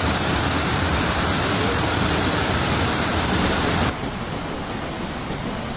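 Loud, steady rush of water, an even hiss with no rhythm. About four seconds in it cuts abruptly to a quieter, duller rush.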